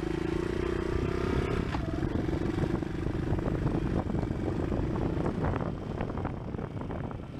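A vehicle engine running steadily, with many small rattles and clicks over it; the hum eases off after about five seconds.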